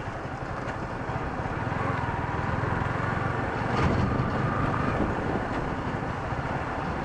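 Yamaha R15 V3's single-cylinder engine running steadily at low road speed, mixed with wind noise over the microphone.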